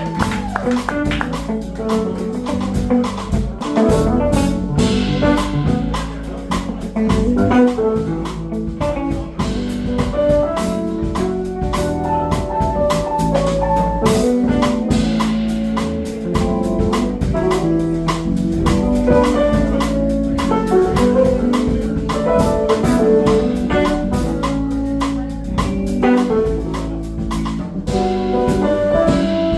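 A band playing an instrumental passage on drum kit, guitar and bass, with a steady beat and no vocals.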